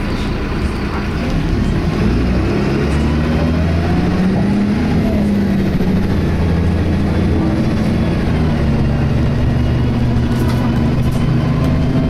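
Inside an Optare Tempo single-deck bus under way: the diesel engine and Allison automatic gearbox running, getting louder about a second and a half in. A whining tone rises and then falls over several seconds. This is the Voith-like transmission whine the uploader finds strange for an Allison gearbox.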